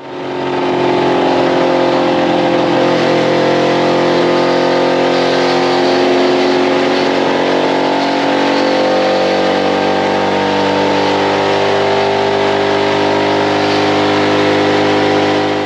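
Ford Ranger pickup's engine running loud at a steady, sustained rev while aerosol spray is fed down its intake in place of gasoline.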